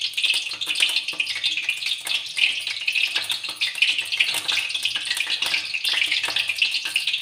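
Steady high crackling hiss of hot cooking oil in a kadhai on a lit gas burner, heating for deep-frying kachori.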